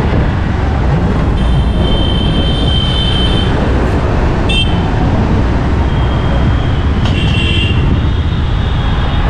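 Road vehicle and traffic noise: a loud, steady low rumble, with high thin tones twice, at about one and a half seconds in and again near the end.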